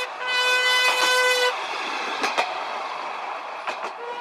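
A horn sounds one steady note: a short toot, then a long toot of about a second and a half, then another short toot near the end. Under it a small sail-powered rail wagon rolls along the track, with a few sharp clicks of its wheels over the rail joints.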